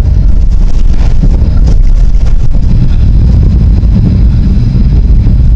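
Tram running along its track: a steady, loud low rumble with a few sharp clicks around one to two and a half seconds in.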